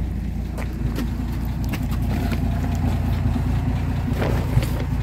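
A 1958 Rambler Super's engine idling with a steady low hum. A few light clicks and knocks sound over it.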